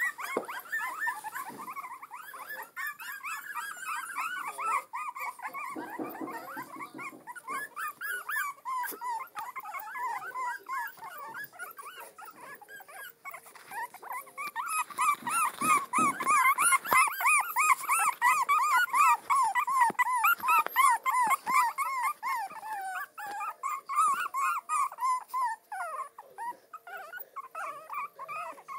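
A litter of young puppies whimpering and squeaking: many short, high calls overlapping one another, growing louder and busier about halfway through, then easing off.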